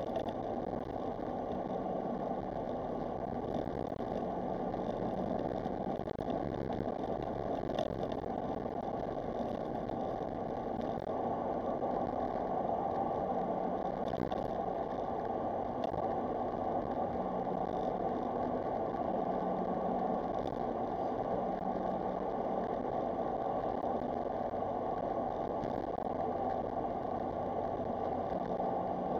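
Smart Roadster Brabus's small turbocharged three-cylinder engine running steadily while the car drives along, mixed with road noise.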